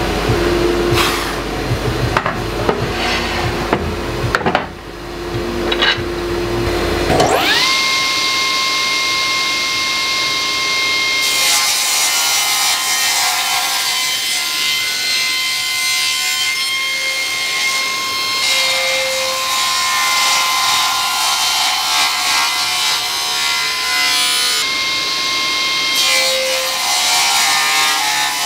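Felder BF6/31 combination machine's table saw spinning up about seven seconds in with a rising whine that settles into a steady whine, then ripping through applewood with a dense cutting noise: one long cut, a short lull, and a second cut near the end. A few knocks come before the saw starts.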